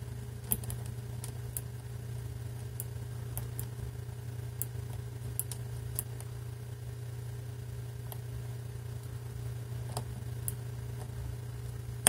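Faint, irregular small clicks as a number wheel on a Master Lock 651 brass combination padlock is turned past its detents, with a knife blade pressed into the gap beside it to feel for the wheel's notch. A steady low hum runs underneath.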